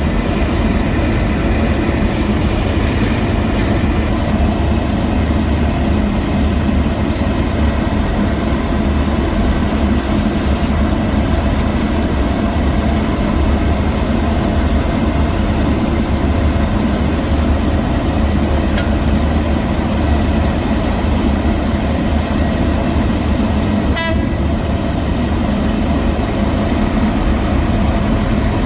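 Heavy diesel road-construction machinery running steadily: a continuous, deep engine drone. A few faint higher tones sound in the first few seconds.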